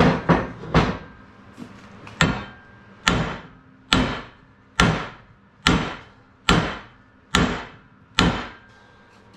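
Hammer blows on the iron of an old, rust-seized arbor press, struck to drive a stuck part out. Three quick blows, a short pause, then eight steady blows a little under a second apart, each ringing briefly.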